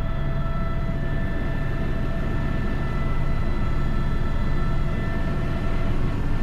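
Airbus H125 helicopter's single turboshaft engine and rotor running steadily in flight: a low rotor drone with thin, steady whining tones above it.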